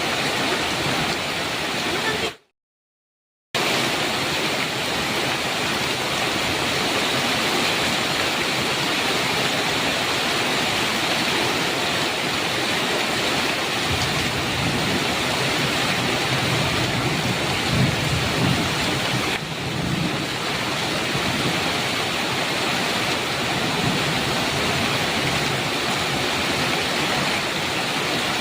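Steady heavy rain, a dense even hiss. About two seconds in, the sound cuts out to silence for about a second, then resumes. A low rumble swells somewhat in the middle.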